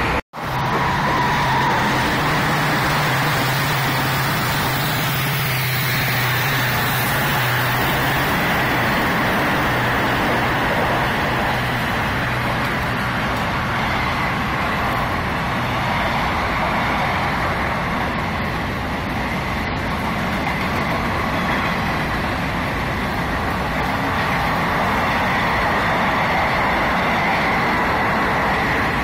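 Passenger express train hauled by a WDP-4D diesel locomotive passing at speed, a continuous rush of coach wheels on the rails. A low steady hum fades out about eight seconds in.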